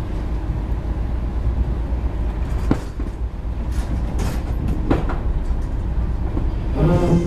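A ferry's engine running at the wharf with a steady low rumble. A few sharp knocks and clatters sound over it, and a short pitched sound comes near the end.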